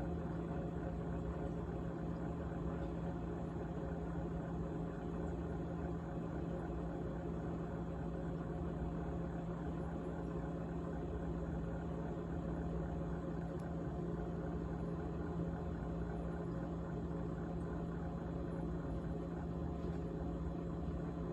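GE GTH18XCTZRBB top-freezer refrigerator running with a steady hum and a continuous rattle.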